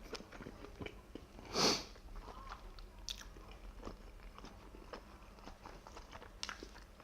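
Close-miked mouth sounds of someone eating steamed scallops: soft, wet chewing of the tender meat, with many small clicks and smacks, and one louder breathy sound about a second and a half in.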